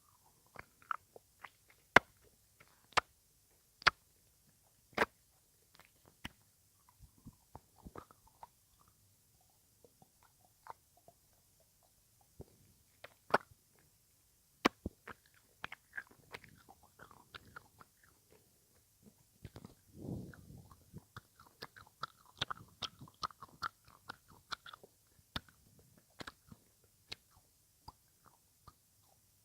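ASMR mouth sounds: sharp clicks and pops of the tongue and lips at irregular intervals, with a busier run of smacking about two-thirds of the way through.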